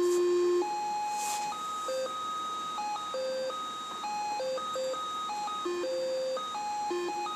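A 1972 Triadex Muse tone generator playing its machine-generated melody, one electronic tone at a time. A long low note gives way to a higher one about half a second in, and then a quicker run of about three notes a second hops between low and high pitches.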